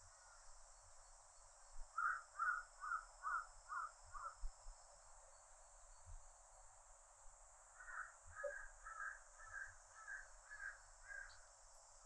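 A crow cawing in two runs of quick calls, about six and then about eight, over a steady high drone of cicadas.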